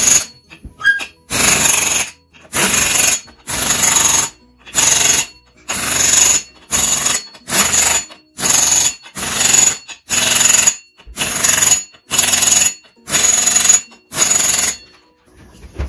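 Pneumatic air impact wrench hammering the flywheel nut of a 1973 Mercury 40 hp outboard, tightening it as the flywheel goes back on. It runs in a dozen or so short rattling bursts, about one a second, and stops near the end.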